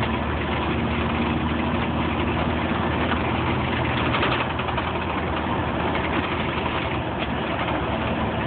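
Fire engine's diesel engine running with road noise while driving, heard from inside the cab: a steady drone.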